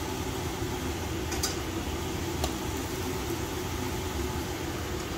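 Saba bananas sizzling steadily in hot oil in a nonstick frying pan, now fully cooked. A couple of light clicks of metal tongs against the pan come about one and a half and two and a half seconds in.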